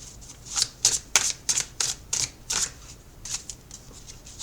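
A deck of tarot cards being shuffled by hand: a series of quick papery rustling strokes, about three a second, thinning out over the last second or so.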